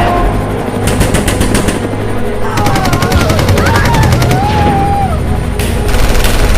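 Recorded combat-chaos soundtrack: rapid bursts of machine-gun fire over a low rumble, with wavering wailing tones in the middle. It is a 'collapse' noise track for desensitising protection dogs to loud noise.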